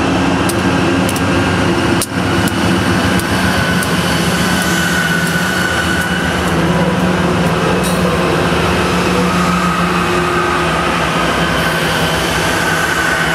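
Diesel freight train running by, its locomotive engine giving a steady drone, with sharp clicks of wheels over rail joints about twice a second during the first few seconds.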